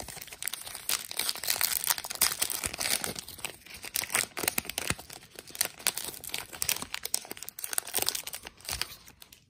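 A stack of trading cards being handled, then the wrapper of a six-card Allen & Ginter pack crinkled and torn open by hand, a dense crackling rustle throughout.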